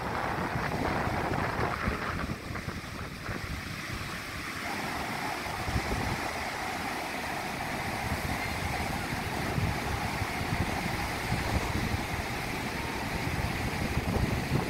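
Ocean surf breaking and washing up the beach in a steady rush, with gusty wind buffeting the microphone.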